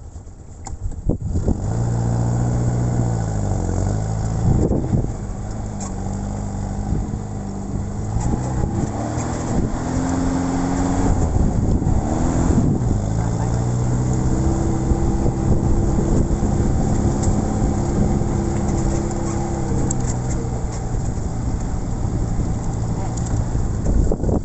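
Jeep Willys engine running under load, picking up about a second in. Its pitch drops and climbs again several times as it is revved, then holds steady for several seconds.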